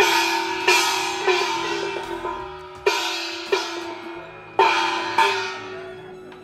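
Hand-held bossed gongs struck with a beater seven times, in a group of three and then two pairs. Each blow rings on a steady tone that fades slowly before the next.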